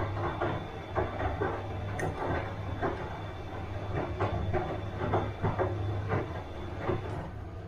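Bosch washing machine running, the drum turning the load with irregular clunks over a steady low motor hum. The clunking stops near the end.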